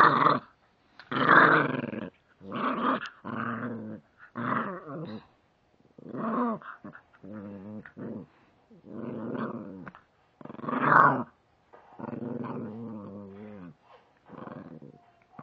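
Chihuahua puppy play-growling while mouthing a finger: a string of about eleven rough growls, each a second or so long with short breaks between, some rising into loud snarls.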